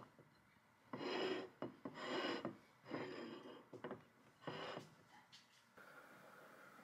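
Ceramic plate being slid and turned on a wooden table, scraping: four short scrapes about a second apart.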